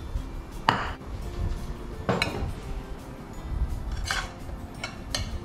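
A metal spoon clinking and scraping against a glass bowl and a ceramic plate as food is served, about five separate clinks, over faint background music.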